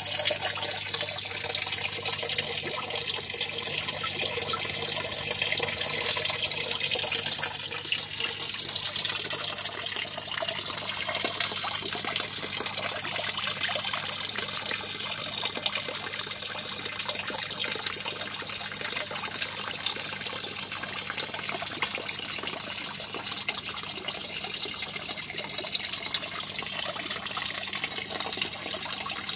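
Water running steadily from a pipe into a fish tank, a continuous splashing trickle, over a low steady hum.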